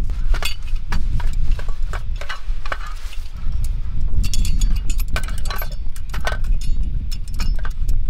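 Sharp metal clicks and clinks of a portable single gas burner being unfolded and handled, its folding parts and fittings knocking together at irregular intervals over a steady low rumble.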